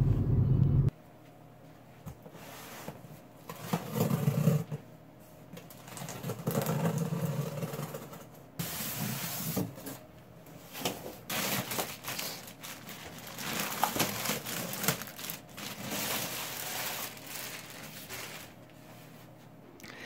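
Car cabin road noise that cuts off within the first second, then a PC case being unboxed: cardboard and styrofoam end caps scraping and a plastic bag crackling in irregular bursts, busiest in the second half.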